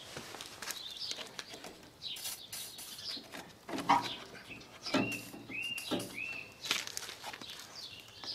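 A hand brush scrubbing and scraping cut grass off the plastic brush segments of a powered grass collector, in irregular strokes. A bird calls a few short repeated notes about halfway through.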